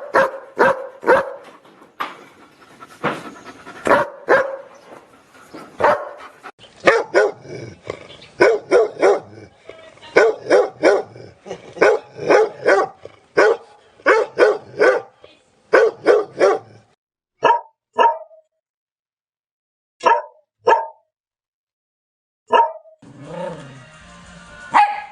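Dogs barking in a string of separately recorded clips. Scattered barks are followed by a fast run of about two barks a second, then sparse single and double barks with dead silence between them.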